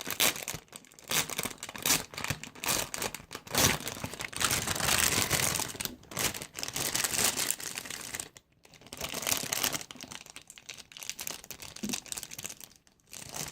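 Plastic squishy packaging crinkling and rustling in irregular crackles as a resealable bag is handled and opened to take the squishy out, busiest about four to eight seconds in.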